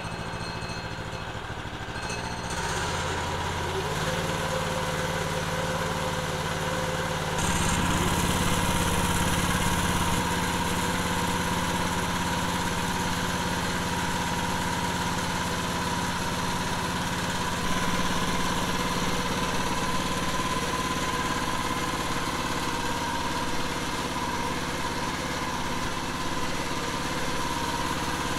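A 420cc Predator single-cylinder four-stroke engine running and driving a salvaged Subaru transmission and front wheels. It picks up about 2.5 s in and again about 7.5 s in, then runs steadily.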